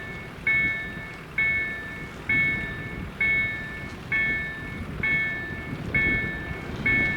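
EDE-1 electronic warning bell of a Polish railway level crossing dinging about once a second, each ding a sharp bright chime that fades, the signal that the crossing's warning is active. A low rumbling noise runs underneath.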